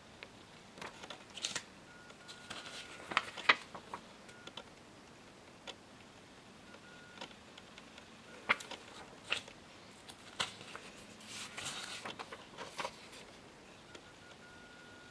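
Paper index cards being handled and swapped close to the microphone: scattered rustles and sharp taps and clicks, the loudest about three and a half seconds in. A faint high steady tone comes and goes in short stretches.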